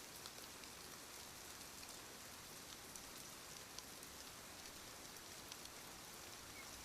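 Faint, steady hiss with scattered soft ticks, like light rain.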